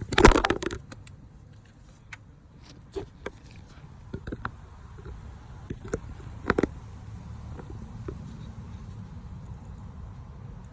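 Tools and metal engine parts being handled: a loud clatter right at the start, then scattered light clicks and knocks over a low steady hum.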